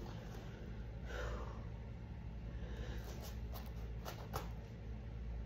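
Quiet room with a steady low hum, as a person breathes and shifts barefoot on a foam sleeping mat during a headstand attempt, with a few faint taps and scuffs between about three and four and a half seconds in.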